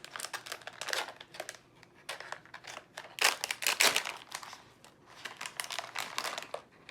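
Plastic wrapping of a toy mystery pack crinkling and rustling in irregular bursts as it is handled and opened.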